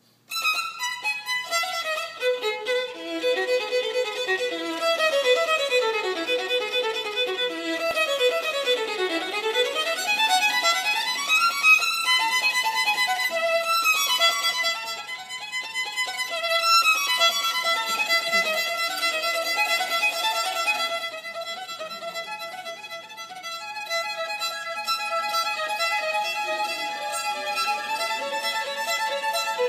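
Solo violin played with the bow, starting suddenly with fast runs of notes sweeping up and down, then moving into longer held notes.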